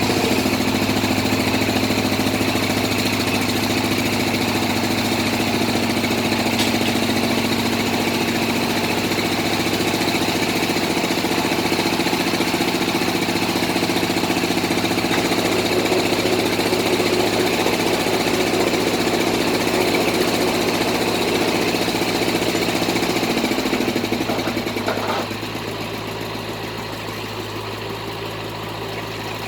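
Engine of a bored-pile drilling rig running steadily, then easing off and turning quieter about 24 seconds in.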